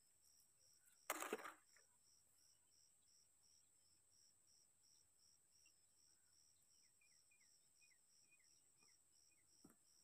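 Faint insects, likely crickets, chirping in a steady high pulse about two to three times a second. A brief loud rustle about a second in, and a few faint short chirps later on.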